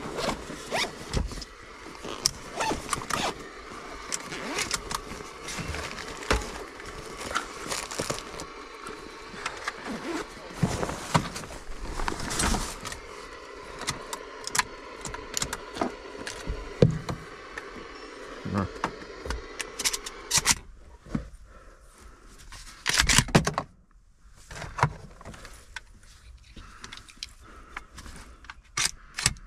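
Clicks, knocks and scrapes of a camouflage shotgun and gear being handled in a pickup cab, with shotgun shells handled near the end. A steady background hiss stops about 20 seconds in.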